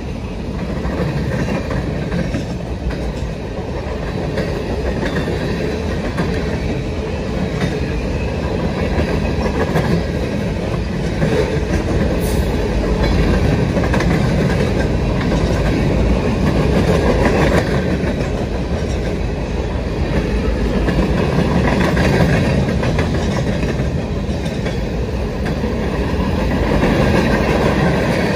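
Freight train's boxcars and flatcars rolling past: steel wheels running on the rails in a loud, steady noise, with a few clicks from the wheels.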